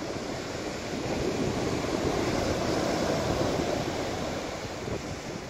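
Ocean surf breaking on a sandy beach: a steady rush of water noise that swells in the middle and eases off again, with some wind on the microphone.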